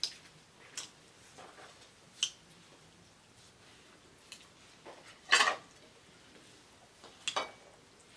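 Quiet meal sounds of people eating by hand from plates: scattered light clinks, taps and rustles of food and plates, the loudest about five seconds in.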